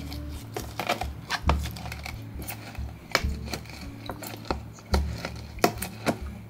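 Wooden muddler pressing and twisting mint leaves and lime wedges in a glass mason jar: an irregular run of knocks and clinks of wood against glass.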